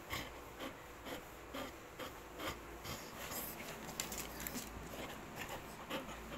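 Grooming brush rasping through a golden retriever's long, thick coat in short, irregular scratchy strokes, a few per second.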